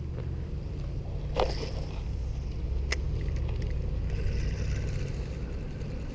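A steady low rumble, with two sharp clicks about a second and a half and three seconds in and a soft rustle later, from hands working a spinning reel.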